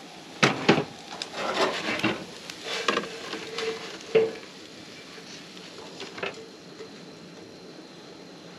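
Spatula scraping and knocking against a frying pan as fried food is scooped out onto a plate: a run of sharp scrapes and clacks with a brief squeal over the first four seconds, then only a faint steady background.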